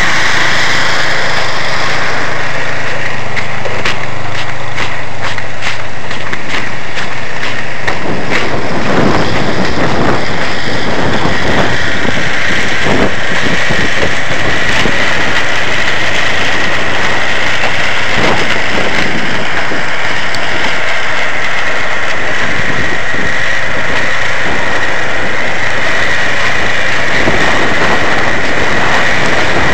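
Gasoline snowblower engine running steadily as it clears snow and throws it from the chute. From about eight seconds in, rough uneven noise with many short crackles rides over the engine.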